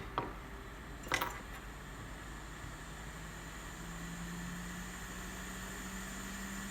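Hot air rework gun's blower running with a steady hum, its tone rising slowly in pitch; a single sharp click about a second in.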